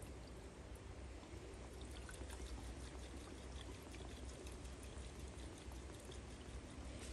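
Liquid poured from a plastic jerrycan into a Stihl chainsaw's tank: a faint, steady trickle.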